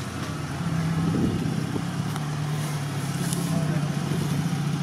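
Toyota FJ Cruiser's 4.0 V6 engine running steadily at low revs, with a slight rise in level about half a second in.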